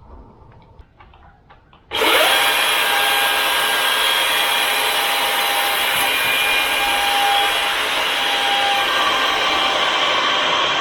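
A few faint clicks, then about two seconds in a DeWalt 60V battery-powered chainsaw starts abruptly and runs steadily at full speed, cutting through a cedar log.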